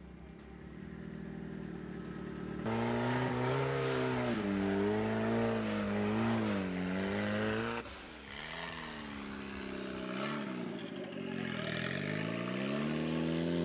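An off-road 4x4 engine revving up and down repeatedly as it works. The sound changes abruptly about two and a half seconds in and again near eight seconds.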